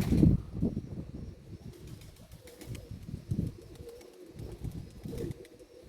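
Domestic pigeons cooing, a soft wavering tone, over irregular low rumbling from wind on the microphone.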